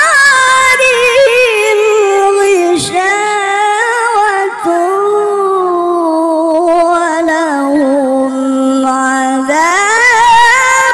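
A single voice chanting Qur'an recitation (tilawah), drawing one syllable out into a long, wavering melodic line with many turns. It settles on a steady lower note about eight seconds in, then sweeps back up near the end.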